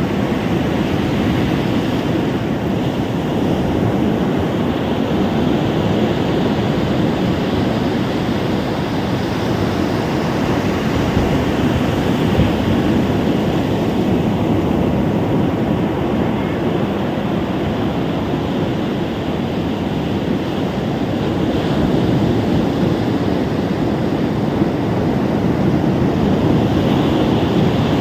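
Ocean surf washing onto a beach: a steady, continuous wash of waves that swells slightly now and then.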